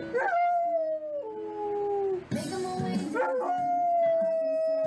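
Large dog howling: two long howls, each falling in pitch toward its end.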